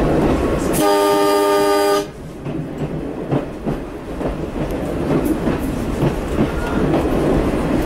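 Horn of a 280 hp Walker railcar sounding one blast of about a second, a steady chord of several tones, cut off sharply. After it the railcar keeps running along the track with a steady rumble, quieter than the horn.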